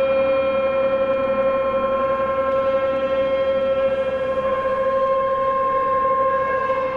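Tibetan singing bowls and gong ringing together as a steady drone of several overlapping metal tones, the notes slowly swelling and fading; a new, lower note comes in near the end.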